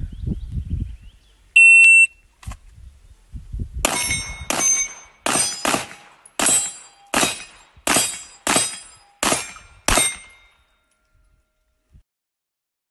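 An electronic shot-timer start beep, then, about two seconds later, a string of ten AR-15 rifle shots fired in about six seconds. The shots come at a fairly even pace of about one every 0.7 s, with one quicker pair.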